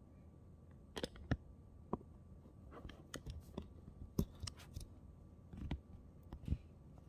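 Handling noise: irregular small clicks and knocks as a phone camera is gripped and repositioned by hand.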